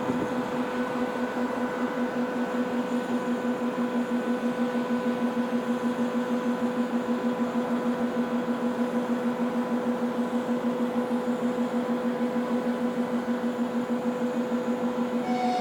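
A steady low hum that pulses rapidly and holds an even level, and a short high beep near the end.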